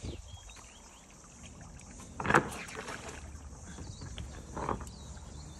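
Double-bladed paddle strokes dipping and splashing in the river as an inflatable kayak comes in to the bank. The loudest splash is a little over two seconds in, with a smaller one about a second before the end.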